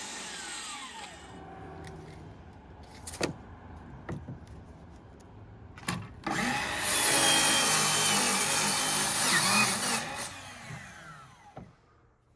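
Power saw cutting plywood strips: the blade winds down at first, a couple of knocks follow, then about seven seconds in the saw starts and cuts for about three seconds before its pitch falls as it winds down.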